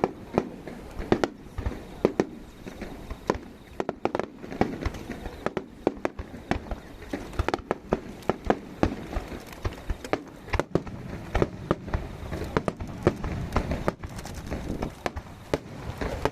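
Aerial fireworks bursting in rapid, uneven succession: many sharp bangs, several a second, some louder than the rest, over a steady low rumble.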